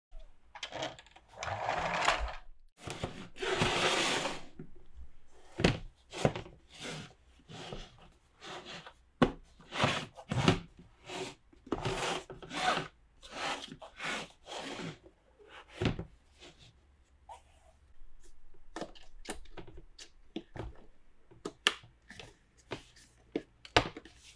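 Hands handling small plastic toy pieces and their packaging: a long series of light taps and clicks, with crinkly rustles near the start.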